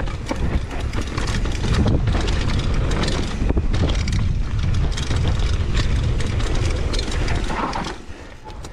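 Mountain bike riding fast down a dirt singletrack: tyres on dirt and a steady clatter of small clicks and rattles from the bike, under heavy wind rumble on the camera microphone. The rumble eases off near the end.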